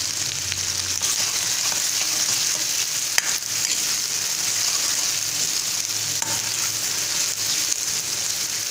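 Chopped onions sizzling as they fry in hot oil in a metal kadhai, stirred with a metal spoon, with one sharp clink of the spoon against the pan about three seconds in.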